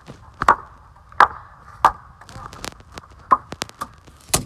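Repeated sharp blows smashing an old Samsung flip phone, about eight irregular strikes, with a quick run of three near the end.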